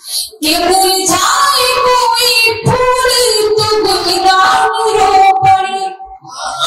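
A woman singing Urdu verse in tarannum, the sung style of reciting poetry, through a stage microphone. She holds long notes, with a short breath pause near the end.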